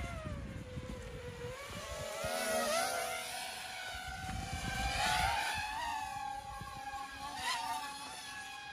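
Small FPV quadcopter's motors and propellers buzzing as it flies, the pitch dipping about a second in, then climbing and wavering as the throttle changes. Wind rumbles on the microphone underneath.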